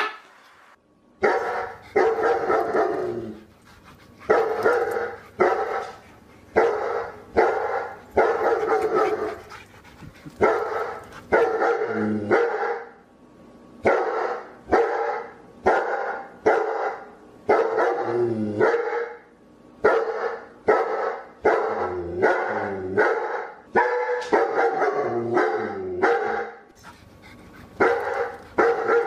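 A dog barking over and over, about one bark a second, with a brief pause about halfway through.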